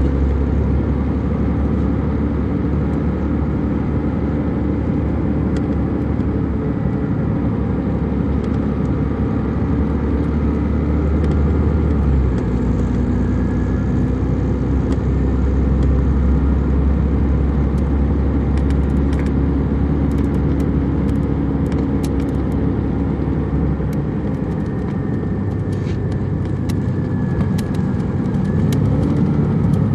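Inline-six Detroit Diesel Series 60 engine of an MCI D4000 coach, heard from on board while the bus is under way. Its low drone eases off partway through, comes back, eases again and climbs near the end, with scattered light clicks in the second half.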